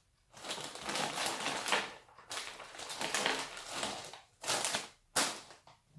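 Crunching and crackling of a rice-cracker and peanut snack mix as its packet is opened and the pieces are chewed close to the microphone. The sound comes in two long stretches, then two short crunches near the end.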